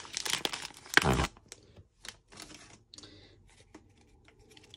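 Foil booster-pack wrapper crinkling as Pokémon trading cards are pulled out of it, loudest about a second in. After that come quieter clicks and short rustles of the cards being handled.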